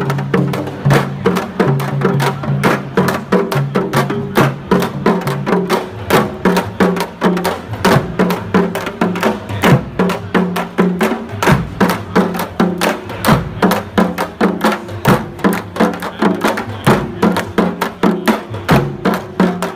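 A group of parai frame drums, beaten with sticks, playing a fast, steady, driving rhythm of sharp strikes.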